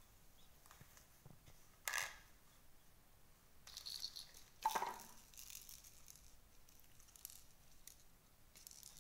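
Baby monkey squealing in short high cries, once about two seconds in and again around four to five seconds in, over faint clicks and rustling from handling.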